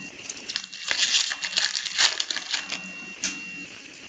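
Foil wrapper of a hockey card pack crinkling and crackling as it is torn open by hand, with the cards inside being handled. The rustle runs dense for about three seconds, with a couple of sharper rips, then dies down near the end.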